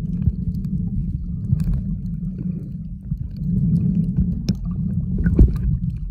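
Muffled underwater sound of shallow seawater washing around a submerged camera: a steady low rumble with scattered faint clicks, and a couple of sharper clicks in the second half.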